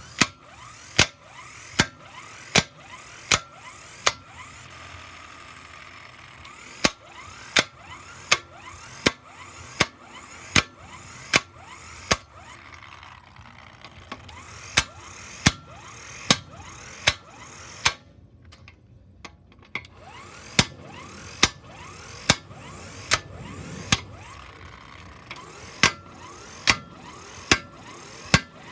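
Hand ratchet wrench being worked on a bolt, giving sharp clicks a little under a second apart in runs, with a few short pauses.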